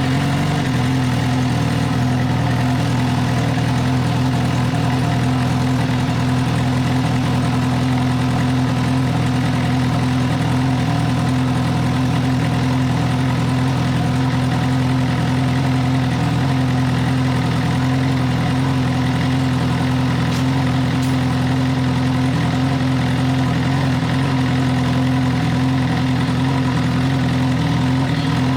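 2014 Suzuki GSX-R1000's inline-four engine idling steadily, with no revving, on freshly changed oil just after being started.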